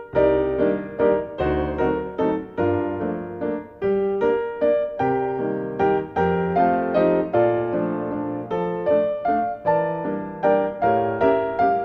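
Piano music: a melody over chords, each note struck and fading.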